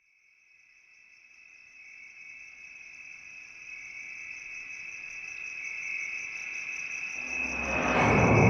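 Intro sound effect: a high, steady trilling tone like a cricket's fades in from silence and grows steadily louder, and a rising whoosh swells in over the last second or so.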